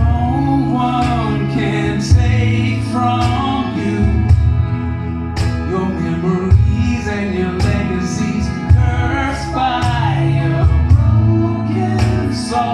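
A pop-rock band playing live: a voice sings a melody over guitar, bass and drums.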